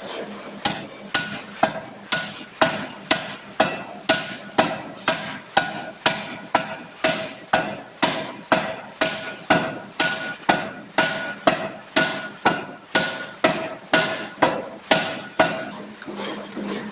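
C41 560 kg pneumatic forging hammer striking a bearing-ring forging in rapid, even blows, about two a second, each with a short metallic ring over the steady hum of the machine. The blows stop shortly before the end.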